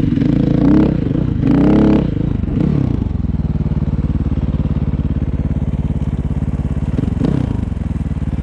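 A small vehicle engine idling with an even, rapid putter, briefly louder in the first two seconds.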